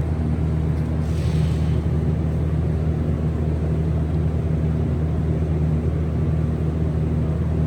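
A steady, loud low machine hum with no change in pitch or level.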